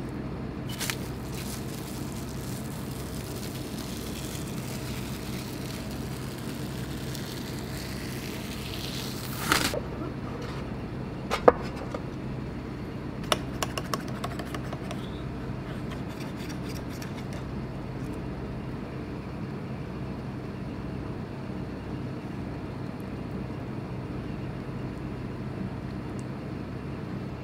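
Cling wrap crinkling as it is peeled off a stainless steel tray, ending in a sharp scrape, then a few clicks and scrapes of a knife against the tray's metal frame as it is run along the edge of the set tofu. A steady background hum runs underneath.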